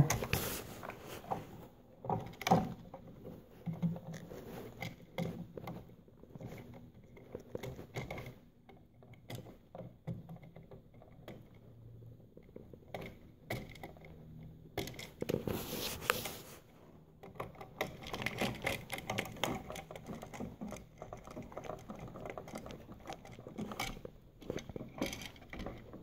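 Small clicks, taps and rustles of pliers and hands bending copper wire ends around a wall switch's screw terminals. There is a louder rustle of handling about fifteen seconds in.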